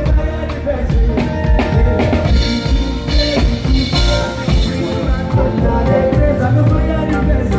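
Live band playing, with the drum kit prominent: kick drum, snare and rimshot hits over bass and sustained instruments, and a brighter cymbal-like wash around the middle.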